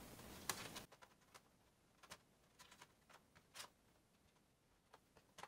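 Faint, scattered clicks and taps as the bottom cover of a Razer Blade Stealth laptop is set in place and pressed down by hand, with near silence between them.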